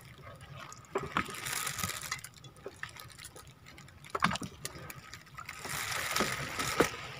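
Small waves lapping and splashing against the side of an outrigger boat, swelling and easing in a hiss, with a few light knocks.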